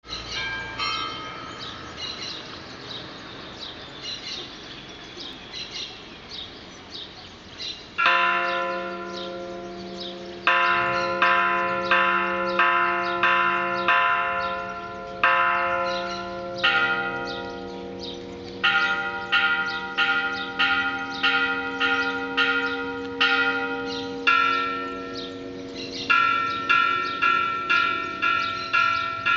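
Church bells ringing the call to mass, with birds chirping. After several seconds of birdsong, a single loud bell strike comes, then rapid repeated strikes of two or more bells at about two a second, with short pauses between runs.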